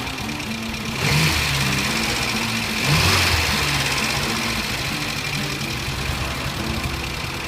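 Talbot Horizon GLS's 1442 cc four-cylinder petrol engine running, revved briefly about a second in and again around three seconds in, with background music playing.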